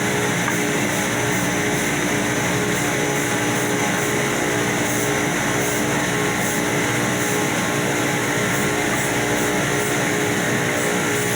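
Electric power sander running steadily on a surface: a continuous motor whine over the rasp of the abrasive.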